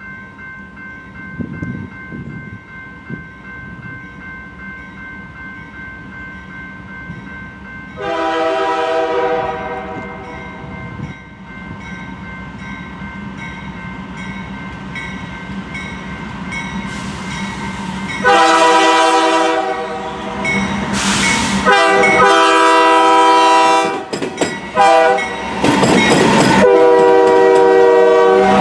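Norfolk Southern diesel freight locomotive's air horn as the train approaches. There is one long blast about eight seconds in. Near the end comes the grade-crossing signal: long, long, short, long. Under the horn, the locomotive and wheels rumble louder and louder as the train draws level.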